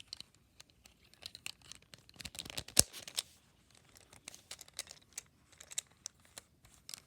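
Plastic Rubik's Cube pieces clicking and rattling as they are handled and pressed back into the cube during reassembly, with one louder snap a little under three seconds in.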